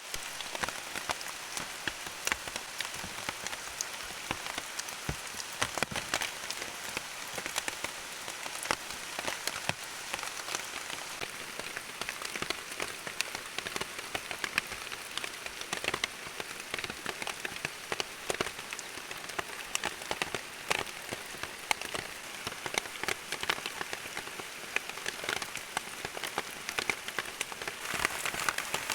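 Steady rain falling, with many sharp drop hits on surfaces; it grows a little louder near the end.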